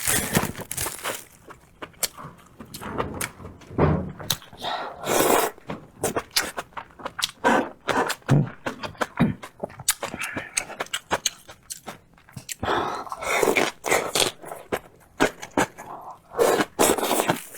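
A person eating close to the microphone: irregular chewing and mouth clicks, with occasional light knocks and scrapes.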